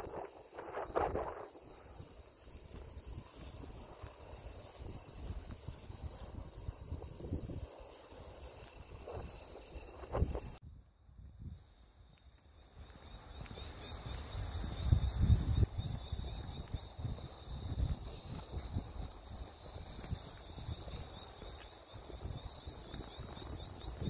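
Grass insects singing in a steady, high-pitched chorus. About ten seconds in the chorus breaks off sharply, then returns a couple of seconds later with rapid pulsed chirping trills over it. Low rumbling noise on the microphone runs underneath.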